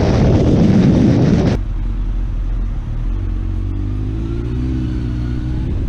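Wind rushing over the microphone with a Honda sportbike running at highway speed, cut off abruptly about a second and a half in. A quieter motorcycle engine follows, running in slow traffic, its pitch rising a little near the end as it is revved.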